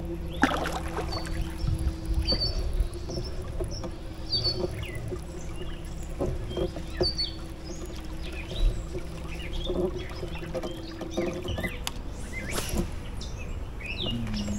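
Torqeedo Ultralight electric outboard on a kayak running with a steady hum. The hum stops about eleven seconds in and comes back at a lower pitch near the end. Small birds chirp repeatedly over it, with a few light knocks.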